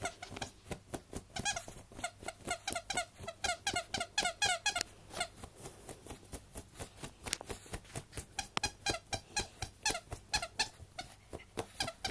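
A dog digging hard at a bed sheet with her front paws: a fast run of short squeaky scrapes, about three to four a second.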